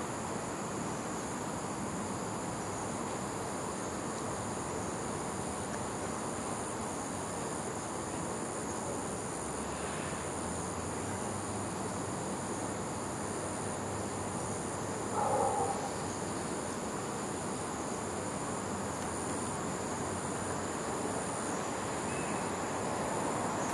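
Steady chorus of insects: a continuous high-pitched drone with a second high note pulsing rhythmically over it. A short louder call cuts through about fifteen seconds in, and a broad rushing noise builds near the end.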